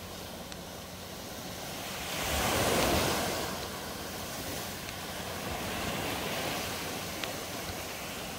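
Ocean surf breaking on a beach, a steady wash with one wave surging to its loudest about two to three seconds in before settling back.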